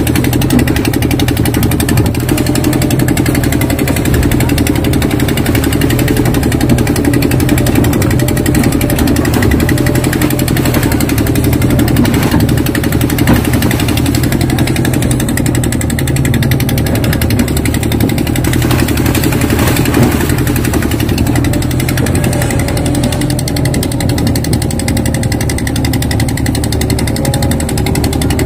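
Crawler excavator's diesel engine running steadily, heard from the operator's cab, while the hydraulic arm digs and dumps wet mud.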